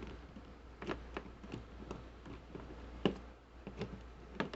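Scattered light plastic clicks and ticks, the sharpest about three seconds in: a zip tie being pulled tighter a notch at a time, its ratchet catching, as it is worked into an action figure's legs in place of an O-ring.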